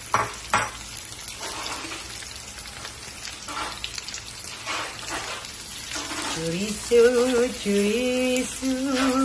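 Sliced chorizo sizzling as it fries in butter and olive oil in a non-stick wok, with two sharp clicks right at the start and a wooden spatula scraping through it as it is stirred. In the last few seconds a person's voice carries a tune in held notes over the frying, louder than the sizzle.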